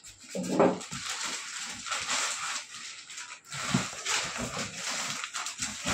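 Unpacking noises: plastic wrap and a cardboard carton rustling and scraping as they are handled, with a few dull knocks as the box is moved and lifted.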